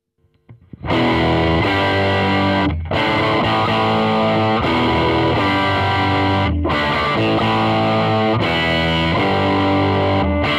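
Overdriven electric guitar chords from a Gibson Custom Shop '58 Les Paul played through the gain channel of a Marshall Origin 20 combo amp with its 10-inch speaker. The playing starts about a second in, with chords ringing out and a few short breaks between phrases.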